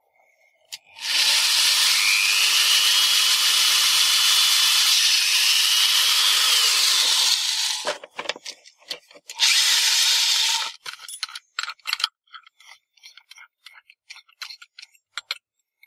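Electric drill running a 4 mm twist bit into a thin metal panel for about six seconds, the motor whine rising a little and then easing before it stops. A shorter second burst of drilling noise follows, then scattered light clicks of handling.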